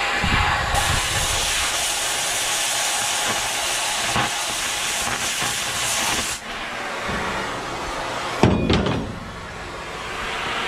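Oxy-acetylene cutting torch hissing steadily as it cuts through the steel of a dump-truck bed. The hiss drops off about six seconds in, and a single sharp knock comes a couple of seconds later.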